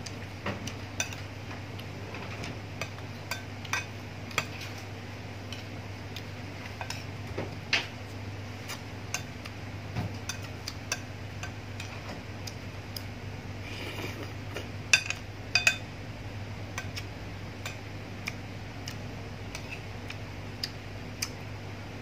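Metal spoon clinking and scraping against a ceramic plate while scooping up rice, a scatter of sharp irregular clicks over a steady low hum.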